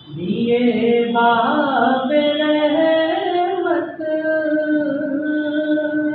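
A solo voice sings a naat without accompaniment, in long drawn-out notes with ornamented glides in pitch. It breaks briefly about four seconds in, then holds one long note.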